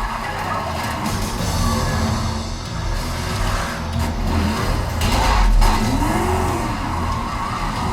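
Action-movie soundtrack of car action, played through a home theater speaker system and picked up by a recorder in the room: film music and heavy subwoofer bass, with car engine and tire sounds, a few sudden impacts, and a rising-then-falling engine pitch near the end.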